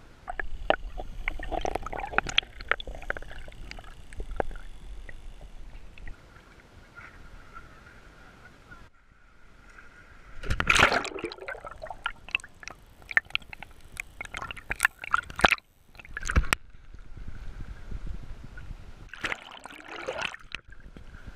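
Sea water sloshing and splashing around a camera held at the waterline as it dips in and out of the surface, with several loud splashes. Near the end, with the camera underwater, a burst of clicking, which fits bottlenose dolphins echolocating.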